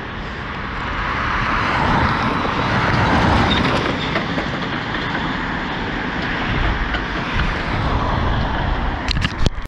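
Road traffic passing on a multi-lane street, vehicles driving by with the sound swelling as one passes about two to three seconds in. A few sharp clicks near the end.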